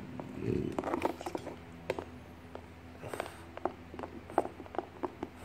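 French bulldog chewing and nosing a clear plastic food container, the plastic giving irregular sharp clicks and taps against its teeth and the blanket. A short breathy noise sounds about half a second in.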